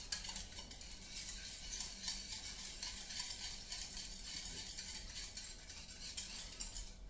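Spoon stirring a liquid soy-sauce mixture in a small bowl: a steady run of small clinks and scrapes against the bowl.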